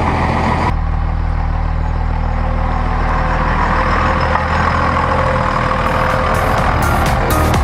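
24-valve Cummins turbo-diesel engine running steadily as the truck pulls away.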